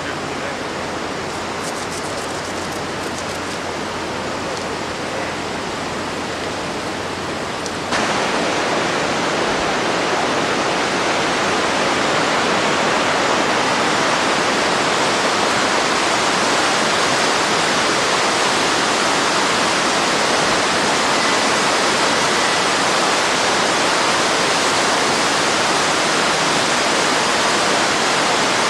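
Steady rushing of a flooded mountain river in spate. The rush turns suddenly louder about eight seconds in and then holds steady.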